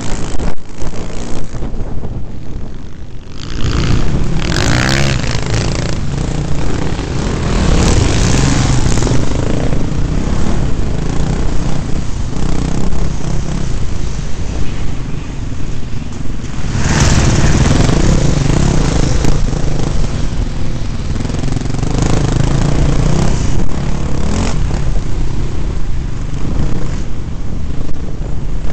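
Dirt bike engine under way, heard from the rider's helmet, with the throttle opening and closing as it rides an offroad trail. It drops away briefly about two seconds in, then comes back loud.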